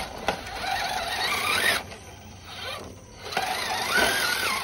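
RC crawler's electric motor and geared drivetrain whining as it claws up rocks. It comes in two spurts of throttle, the whine rising and falling in pitch, with a quieter pause between them.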